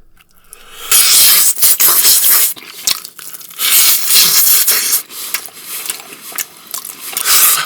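Loud slurping and sucking at a dry rub chicken wing, in long hissing pulls of a second or more, about three of them, with smaller smacking and chewing noises between.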